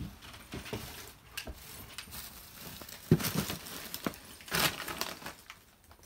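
Footsteps over debris-strewn floor: irregular crunching and crumpling of paper and cardboard underfoot, with knocks, the heaviest about three seconds in.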